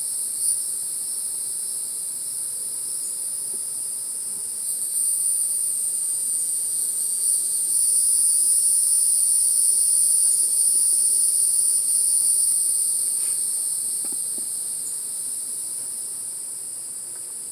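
A steady high-pitched insect chorus, swelling louder about five seconds in and easing off near the end.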